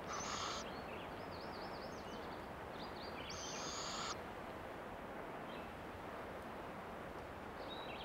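Barred owlets in the nest cavity giving raspy, hissing begging screeches: one at the start and a longer one about three and a half seconds in, with short wavering high notes between them.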